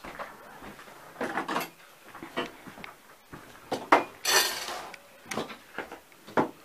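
Dishes and cutlery clinking and knocking irregularly, with a short hiss about four seconds in.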